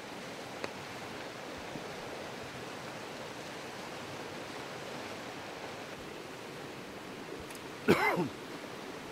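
River water flowing steadily. Near the end, one loud, brief pitched sound cuts in for about half a second.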